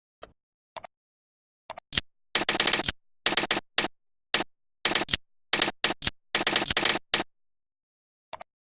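Computer keyboard typing in short, irregular clusters of sharp clicks, with dead silence between them.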